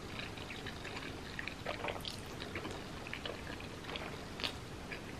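Wet mouth sounds of eating black bean noodles: soft smacks and small clicks of chewing, faint and irregular.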